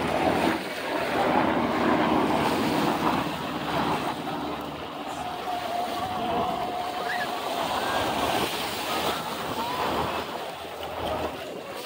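Small surf waves washing in the shallows and wind on the microphone, a steady noise that swells and eases, with faint voices of nearby people.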